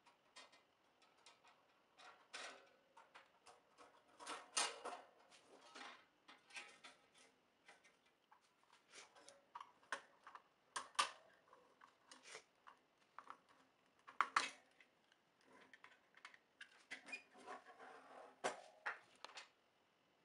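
Irregular clicks, rattles and knocks of an IMAC Cova 42 bird cage's wire panels and clear plastic parts being handled and fitted together during assembly, with a few sharper knocks among them. It stops shortly before the end.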